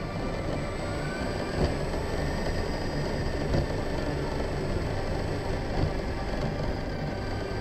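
Onboard sound of a Redcat Wendigo 1/10 RC truck driving on a concrete path: a steady low rumble of tyres and drivetrain, with a few sharp bumps about 1.5, 3.5 and 6 seconds in.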